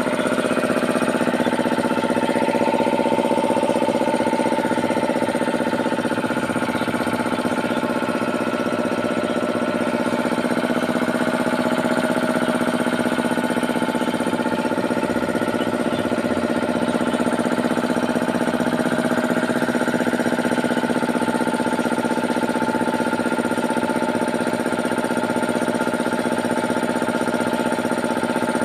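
Power Craft 3 hp air compressor with a 120 L tank running steadily under power, an even mechanical hum with a fixed pitch.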